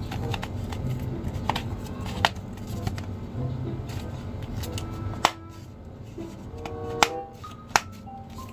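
Background music, with a few sharp plastic clicks and knocks from a plastic Hulk action figure being handled over its plastic packaging tray.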